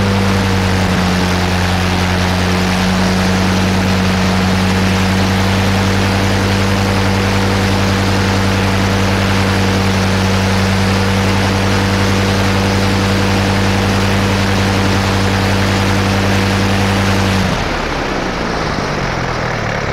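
1918 Gnome 160 hp nine-cylinder rotary aero engine running steadily at speed on a test stand, its propeller turning, and keeping on running with the ignition switches turned off, a switch fault. About three-quarters of the way through it stops firing and winds down, its pitch falling as the engine and propeller coast down, after the fuel is cut.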